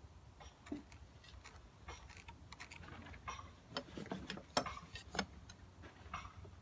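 Irregular light clicks and taps from a square and a wooden blank being handled on a workbench while lines are marked around the piece, with one sharper knock about four and a half seconds in.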